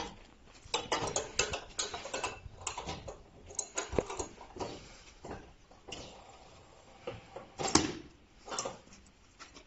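Irregular metal clicks and knocks as the clamp bolts around the door of a horizontal charcoal carbonization retort are loosened by hand, with one louder clank toward the end. The retort door is being undone to open the kiln and unload the charcoal.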